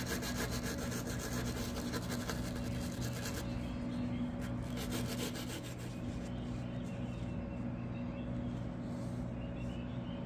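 Small brass brush scrubbing a coin's edge with polish paste in quick back-and-forth strokes; the scrubbing stops about three and a half seconds in, with a few lighter strokes a second later.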